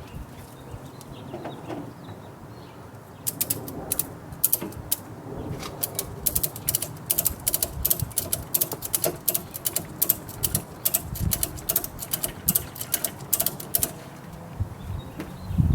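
Quickloader self-retracting ratcheting tie-down strap being cranked tight: quick runs of sharp metallic ratchet clicks begin about three seconds in and stop shortly before the end.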